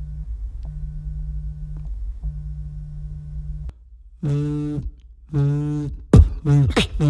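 A mobile phone vibrating close to a microphone: a low, even buzz in pulses of about a second and a half with short gaps between. After a short pause, a beatboxer imitates the vibration with his mouth in two shorter, louder buzzes, followed near the end by sharp clicks and further buzzes.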